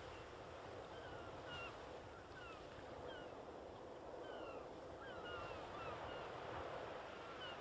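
Faint steady wash of surf and wind, with birds giving short whistled chirps, about two a second, from about a second in.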